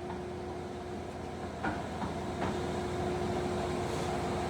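Geared headstock of an engine lathe running its spindle at low speed, a steady mechanical hum with a held tone. A few short knocks come about halfway through.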